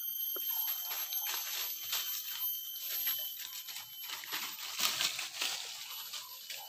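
Rustling and crackling of ferns and dry leaf litter as someone pushes through dense forest undergrowth, busiest around the middle, with thin steady high tones behind it.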